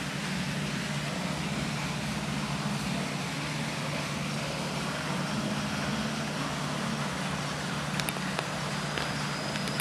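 Steady background hum and hiss, like machinery, with a few sharp clicks near the end.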